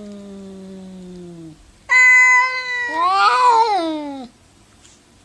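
Two cats yowling at each other in a hostile standoff. A long low yowl slides down in pitch and stops, then a loud, higher cry breaks out about two seconds in, followed by a wavering yowl that bends up and down and trails off about four seconds in.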